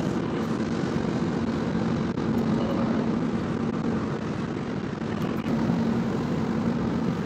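Steady road and wind noise inside a car travelling at highway speed: a loud, even drone with a low hum under it.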